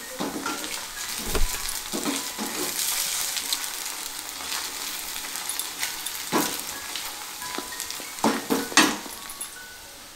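Battered cauliflower pieces deep-frying in hot oil in an aluminium kadai, a steady sizzle, with a slotted spoon stirring and knocking against the pan several times, the sharpest knocks about six and eight to nine seconds in.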